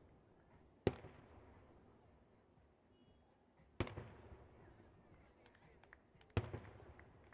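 Three fireworks shell bursts, each a sharp bang followed by a fading rumble of echo, roughly three seconds apart, with faint crackling after the last.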